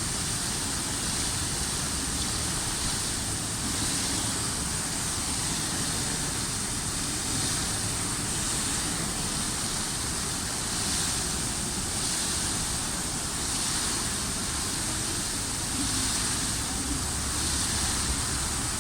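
Water from an outdoor fountain splashing steadily, a constant rushing hiss with a low rumble underneath.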